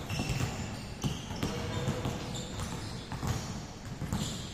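Several basketballs being dribbled and bounced on an indoor court at once: an irregular patter of thumps, with now and then a short high squeak of sneakers on the floor.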